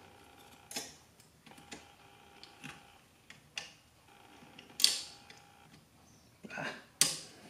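Small metal clicks and taps from a pin and dental pick working against the metal receiver and fire-control parts of a GHK AK airsoft rifle as the front pin is fed through, with two sharper clicks about five and seven seconds in. A faint steady hum runs underneath.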